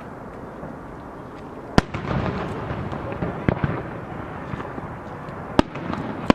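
Aerial firework shells bursting: a sharp bang about two seconds in, the loudest, followed by a longer rumble, then further bangs about halfway through and near the end.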